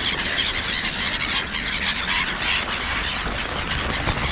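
A feeding flock of gulls calling all at once: many overlapping calls with no break, steady in level.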